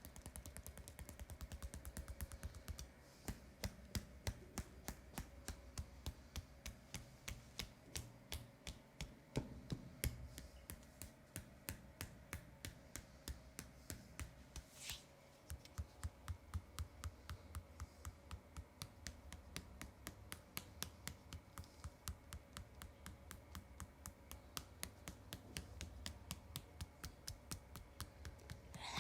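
Hands rapidly tapping a leg in a percussive massage, an even run of light taps at about four to five a second.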